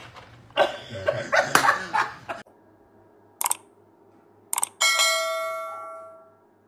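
A stretch of loud, irregular noise in the first couple of seconds, then two short mouse clicks and a bell chime that rings and fades away over about a second and a half: the click-and-bell sound effect of a subscribe-button animation.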